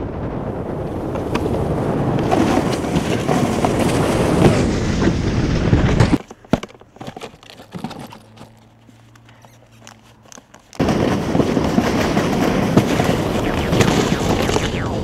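Loud, rough scraping of a snowboard sliding over snow. About six seconds in it drops to a quiet stretch with a few sharp clicks, then comes back about four seconds later.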